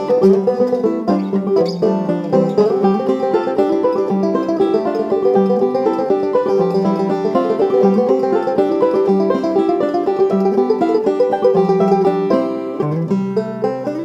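Instrumental background music led by a plucked string instrument, a busy tune of quick notes, with a low bass note coming in near the end.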